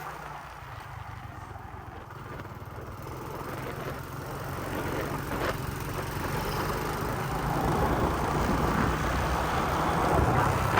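Small single-cylinder motorcycle engine running while riding, with road and wind noise, growing louder through the second half.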